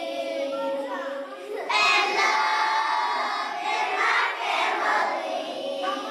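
A group of young children's voices, singing and calling out together with overlapping voices; the group gets louder about two seconds in.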